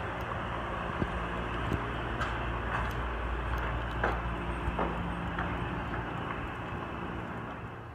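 Small wheels rolling over concrete: a steady rumble with a few sharp clicks, easing off slightly near the end.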